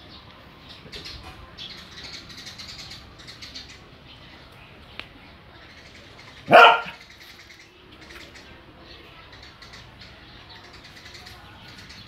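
A dog barks once, a single short, loud bark about halfway through.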